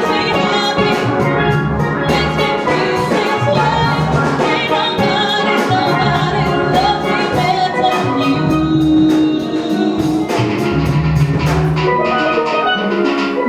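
Steel band music: steelpans playing a melody over a steady drum beat.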